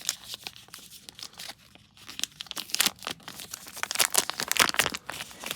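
Packaging crinkling and tearing as it is unwrapped by hand, in quick irregular crackles that are busiest about four seconds in.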